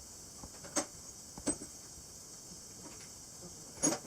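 Three short, sharp knocks, irregularly spaced, the last one near the end the loudest, over a faint steady hiss.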